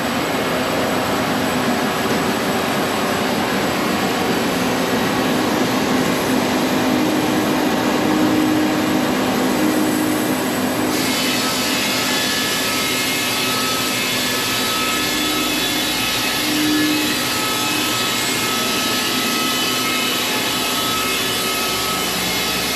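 Sawmill running loud and steady as it makes a cut through an old heart pine beam. About eleven seconds in, the tone changes and a faint steady whine comes in.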